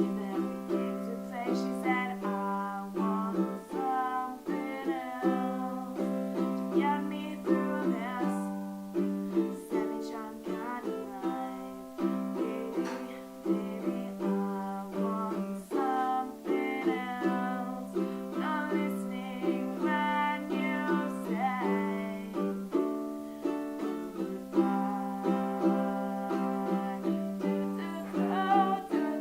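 Music on a plucked string instrument: a steady run of picked notes ringing out over a held low note.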